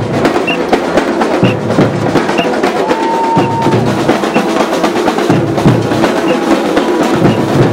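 A street drum line playing a busy, steady rhythm on surdo bass drums and snare drums, with a short high note about once a second and one held higher note about three seconds in.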